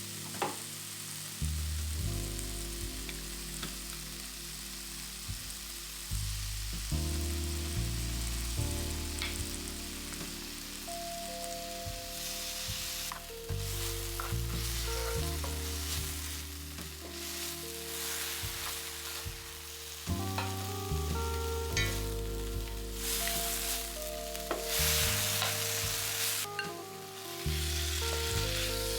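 Food sizzling in oil in a frying pan while being stirred, with occasional utensil clicks and a denser sizzle in the second half. Soft background music plays throughout.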